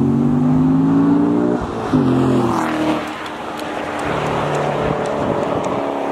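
Corvette C7 Grand Sport's V8 with the stock exhaust's NPP valves open, accelerating hard. The pitch climbs, drops at a gear change about a second and a half in and climbs again, then the sound falls away and fades as the car pulls off into the distance.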